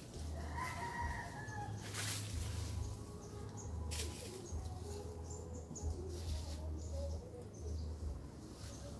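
Outdoor animal sounds over a low rumble: a short, slightly falling animal call about half a second in, then faint scattered bird chirps. Two sharp clicks come at about two and four seconds.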